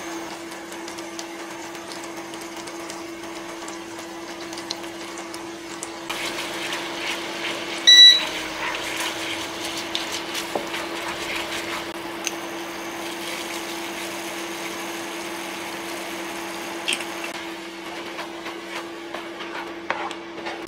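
Butter melting and sizzling in a ceramic frying pan as a wooden spatula stirs it, with light scraping and ticks of the spatula on the pan, over a steady low hum. The sizzle grows about six seconds in, and a short, loud beep sounds about eight seconds in.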